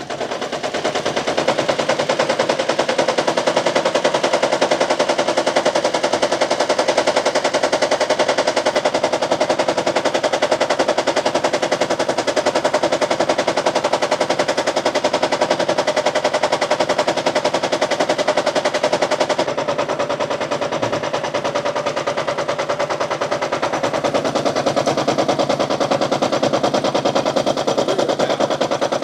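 Toyota Prius engine running with the injectors for cylinders 1 and 2 disconnected, making a fast, continuous rattle of rapid knocks. This is the noise a misfire typically sets off in the hybrid transmission's damper. The rattle eases a little about two-thirds of the way in.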